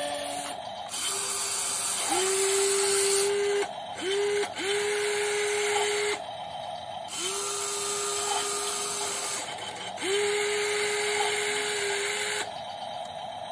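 Electric motors of a WLtoys 16800 RC metal excavator whining as they move the boom and bucket, in about six separate runs of one to two seconds, one of them very short. Each run rises quickly in pitch and then holds a steady tone.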